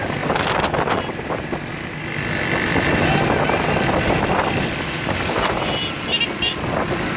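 Many motorcycle engines running in a moving pack, with wind buffeting the microphone and voices now and then.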